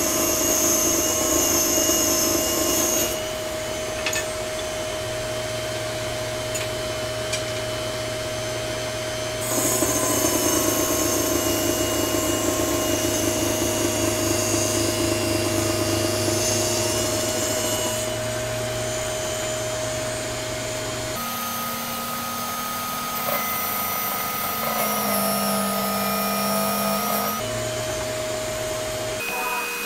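Minleaf ML-MS1 mini table saw's small 480-watt motor running with a steady whine as its blade rips thin wood, fir strip and 10 mm plywood. The cutting gets louder and hissier twice, at the start and again for about eight seconds a third of the way in.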